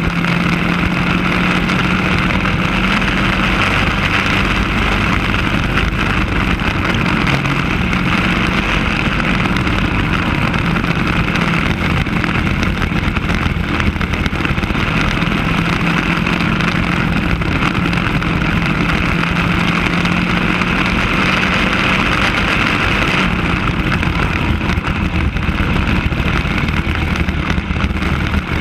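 Racing kart engine heard from a camera mounted on the kart, running hard at high revs with its pitch wavering as the throttle comes on and off through the corners, under a steady rush of wind on the microphone.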